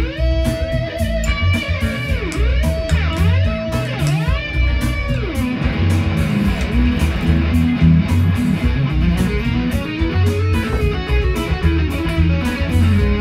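Fender Stratocaster electric guitar playing an improvised Mixolydian lead: a long held note bent up and down several times, then a quicker run of notes from about halfway. Underneath it runs a backing groove with bass and a steady beat.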